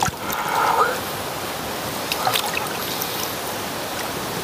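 Water sloshing and trickling around a hand holding a released pike in shallow reedy water, with a brief louder splash in the first second and a few small clicks about two seconds in.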